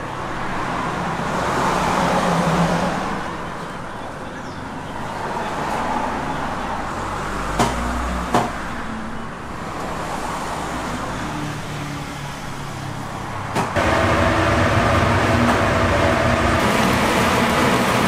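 Road traffic and street background noise, with two sharp clicks around the middle. About three-quarters of the way through it jumps to a louder, steady hum.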